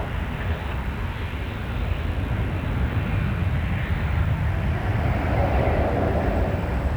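Jet airliner engines running with a steady low rumble.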